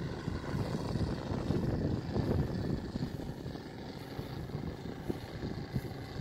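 The 250 cc Moki radial engine of a large-scale model Udet Flamingo biplane running in flight, its propeller drone growing fainter from about halfway through as the plane climbs away.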